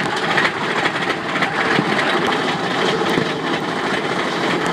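Mine-train roller coaster running along its track, heard from a seat on board: a steady, loud noise of the cars and wheels on the rails.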